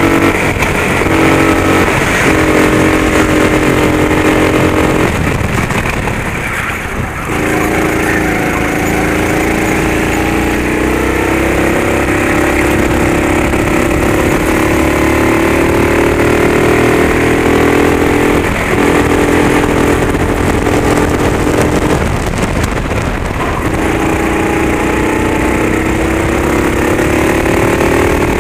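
Racing kart engine running hard, heard from the driver's seat. Its revs climb steadily along the straights and fall away sharply when the driver lifts for corners: about five seconds in, and again about twenty-two seconds in.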